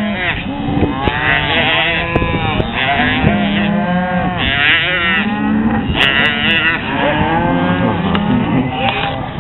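A herd of cattle mooing, many overlapping calls one after another with no pause.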